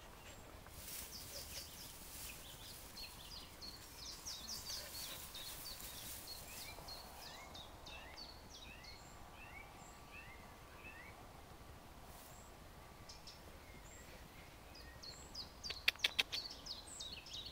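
Birds singing in the background, many short quick chirps and whistled notes, over a faint rustle of long grass, with a few louder brushing crackles near the end.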